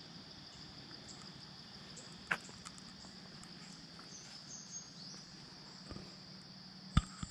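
Steady high-pitched insect chorus, with a short click about two seconds in and a louder sharp knock near the end.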